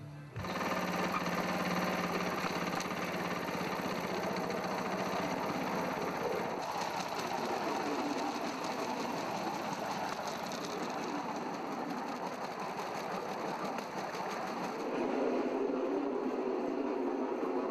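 Bamboo train (norry) running along the rails: its small engine runs steadily with a fast mechanical rattle and clatter from the platform and wheels on the track. The low part of the sound grows somewhat louder about three quarters of the way through.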